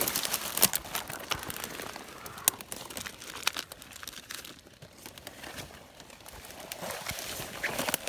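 Dry leaves and twigs crackling and a plastic bag crinkling as a hand pushes a bagged package into a gap between fallen logs. The sharp crackles are densest in the first few seconds, ease off around the middle, and pick up again near the end.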